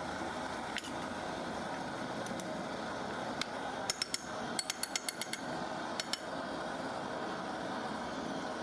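A quick run of about a dozen sharp, light taps or clinks of a hand tool on hard material, bunched in the middle few seconds, over a steady background hum.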